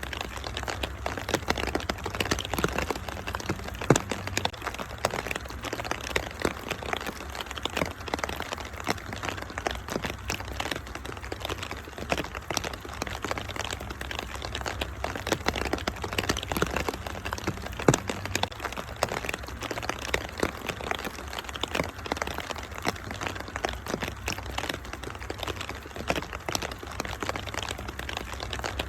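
Wood fire crackling with dense small snaps, and a couple of louder pops about four seconds in and again past the middle, over a steady rain hiss and a low rumble.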